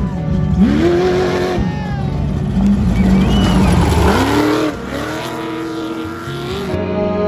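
Off-road race vehicles' engines revving hard as they pass at speed. The pitch climbs and falls several times as the throttle opens and lifts, over the rush of tyres on dirt.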